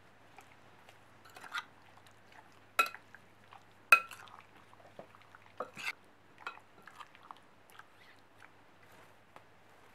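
A metal fork stirring raw chicken pieces and spices in a glass bowl. There are soft wet squelches and several sharp clinks of the fork against the glass; the two loudest come about three and four seconds in, each with a brief ring.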